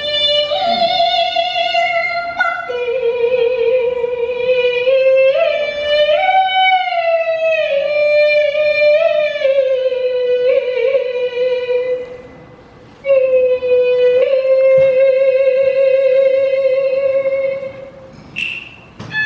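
A woman singing Cantonese opera into a microphone: long held notes with wide vibrato that slide slowly between pitches. The singing breaks off briefly about twelve seconds in, then resumes on a long steady note.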